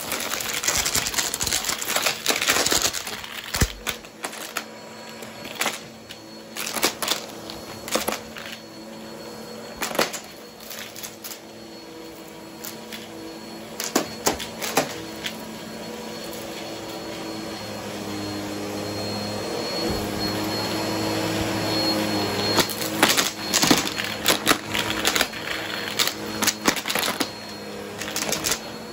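Bissell upright vacuum cleaner running over carpet, with a steady motor hum. Coins and small wooden tiles clatter and rattle as they are sucked up. The clicking is busiest at the start and again near the end.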